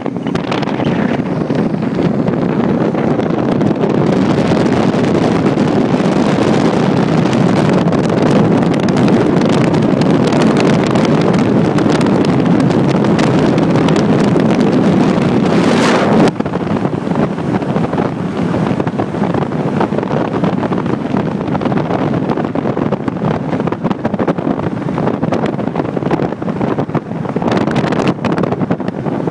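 Wind rushing over the microphone of a camera held out of a moving car's window, mixed with road and traffic noise. The deep part of the rush drops off abruptly about sixteen seconds in.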